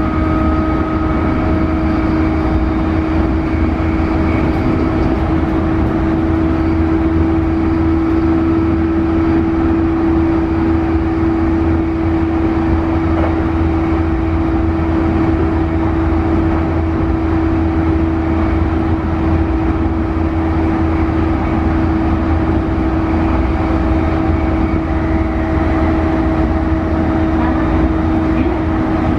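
Running sound inside a JR East E531 series electric train's motor car at speed: a steady rumble of wheels on rail with a hum held at one pitch from the traction motors beneath the floor. Fainter higher tones over the hum fade away partway through and come back near the end.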